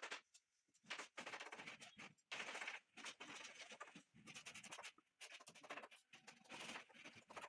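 Faint scratching and clicking, on and off, of a screwdriver driving the screws that fasten an amplifier circuit board to its cabinet.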